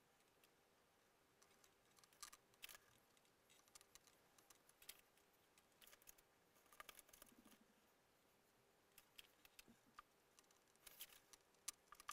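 Near silence with faint, scattered small clicks and taps from bench handwork: gloved hands working glue onto foam landing skids with a stick.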